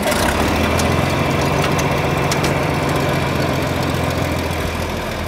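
John Deere 4020's six-cylinder diesel engine running steadily at idle, just after being started.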